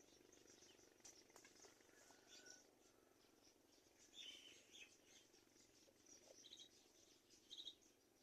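Faint short bird chirps, a few scattered ones, loudest about seven and a half seconds in, over a faint high-pitched background hiss.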